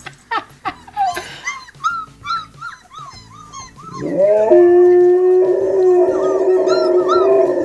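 Siberian husky whining in short rising-and-falling cries, a few a second, then about four seconds in breaking into a long, steady howl, the loudest part.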